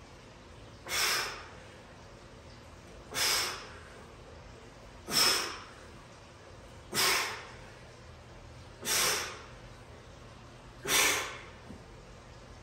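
A man's sharp, forceful exhales of exertion, six in all, about one every two seconds, one with each rep of a stability-ball rollout.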